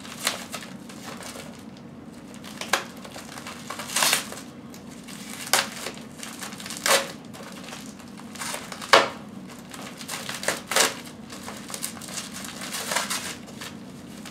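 Plastic packing wrap crinkling and crackling in short bursts a second or two apart as a taped bundle is cut and peeled open with a folding knife.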